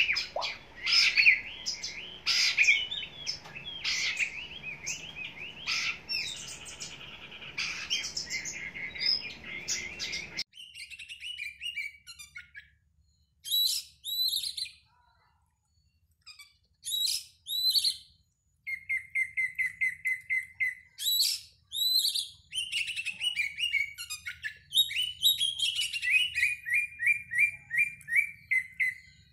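Oriental magpie-robin (kacer) singing a varied song of whistled phrases, chatter and rapid trills of repeated notes. About ten seconds in, the background noise cuts out suddenly and the song carries on in separate phrases with short pauses.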